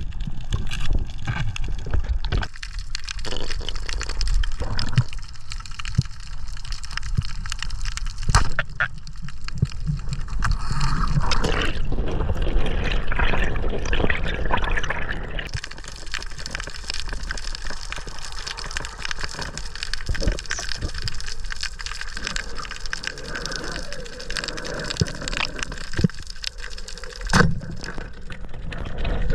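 Underwater noise heard through a camera beneath the surface: a steady muffled rush of water with a low rumble, scattered clicks and knocks, and a sharper knock about eight seconds in and another near the end.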